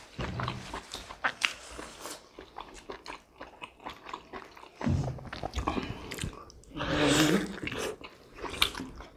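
Wet close-up chewing, biting and lip-smacking of people eating juicy steamed pork momos by hand, with a louder slurp of the momo juice about seven seconds in.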